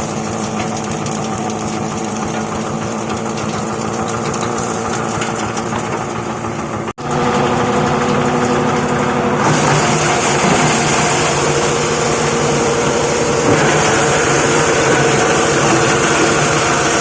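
Plastic crusher machine running steadily with a mechanical drone. It breaks off abruptly for an instant about seven seconds in, then continues louder and brighter.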